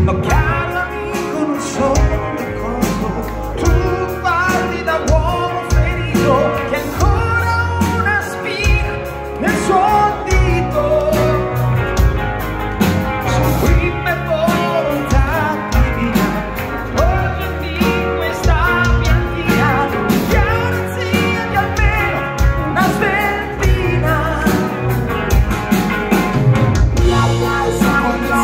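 A rock band playing live, with electric guitar, bass and drum kit and a melodic lead line over them.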